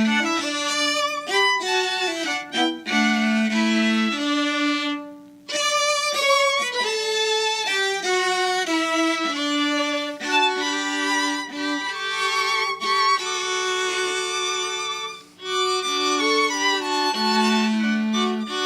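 A small live group of violins playing a piece in several parts, with held, bowed notes. The music pauses briefly between phrases about five seconds in and again about fifteen seconds in.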